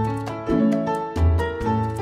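Background instrumental music: short, sharply struck notes in a steady, bouncy rhythm over a recurring bass note.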